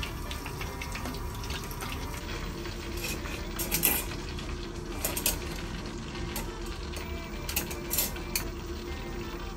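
Breaded oyster and horse mackerel fries sizzling in hot oil in a small deep-fry pot, a steady crackling hiss. A few sharp utensil clicks in the middle.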